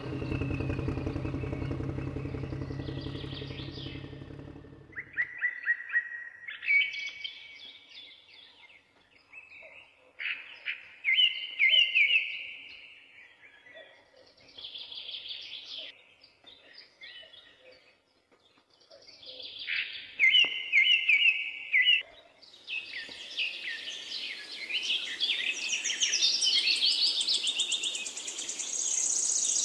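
A steady mechanical hum, like a small engine running, stops about five seconds in. Then birds chirp and call in short bursts with pauses between them, building near the end into a dense chorus of birdsong.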